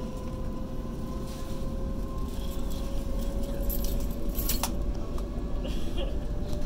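Cabin noise of a Waratah A set electric passenger train under way: a steady rumble with a traction motor whine slowly rising in pitch as the train gathers speed, and a few light clinks and rattles.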